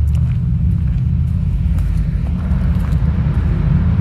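Wind buffeting a phone's microphone while walking, a steady low rumble, with faint footsteps on a tarmac path.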